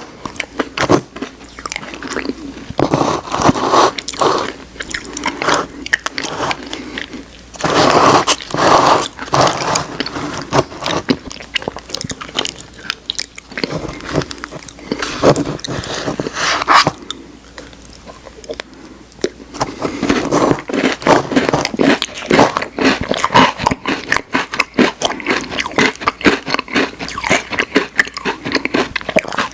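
Close-miked ASMR eating: chewing and crunching of Oreo ice cream, the cookie pieces cracking between the teeth, in clusters with short lulls between.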